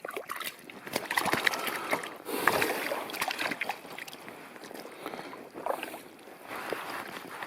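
Irregular water splashing and sloshing with small scattered knocks as a hooked brook trout is handled at the surface.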